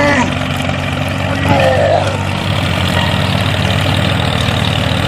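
Steady engine sound with a fast even pulse, such as a small tractor engine running, for the toy tractor driving through mud. A short higher sound comes right at the start and another about a second and a half in.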